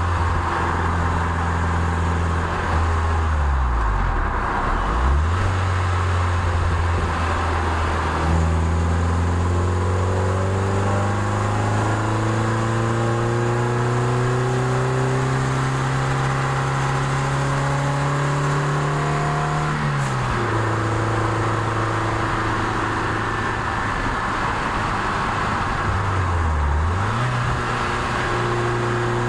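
Toyota MR2 Spyder's 1.8-litre four-cylinder engine heard from on board while driving uphill. The revs dip and recover briefly a few seconds in and again near the end, and in the middle they climb steadily for about twelve seconds before dropping suddenly, over steady wind and tyre noise.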